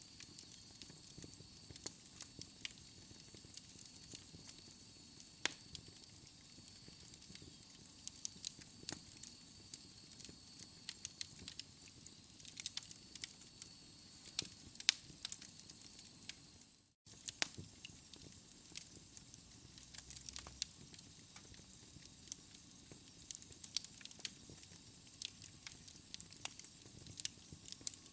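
Fire crackling, with frequent sharp pops and snaps over a steady hiss. A faint high whistle runs under it for about the first half. The sound cuts out completely for a split second about two-thirds of the way through.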